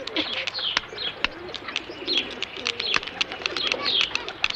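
Birds chirping, with low cooing calls and many short, sharp clicks scattered through it.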